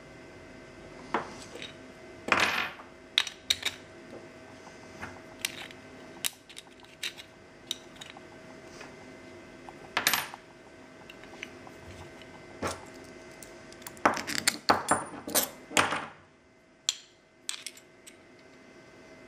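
Metal parts of a car's aluminium accessory-belt tensioner clinking and scraping as they are handled and worked apart by hand: irregular sharp clicks and clinks, with a quick cluster of them near the end.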